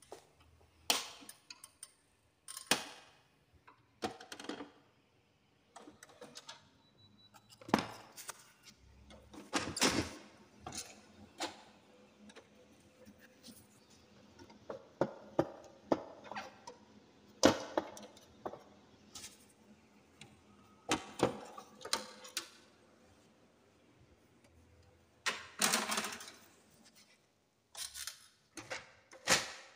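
Laser printer being handled and taken apart: irregular clicks, knocks and rattles of plastic and metal parts, some in quick clusters, with no steady running noise.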